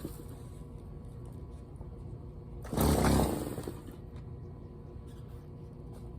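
Small engine of a tree-trimming power tool revved once for about a second near the middle, then falling away, over a steady low hum.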